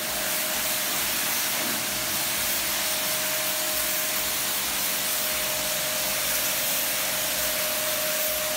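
Steady hiss of a water jet spraying inside a concrete well shaft, over a constant motor whine.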